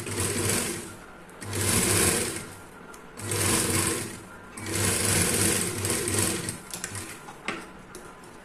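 Sewing machine stitching a fabric strip onto a garment edge, running in four bursts with short pauses between them, the last one the longest, then a few light clicks after it stops.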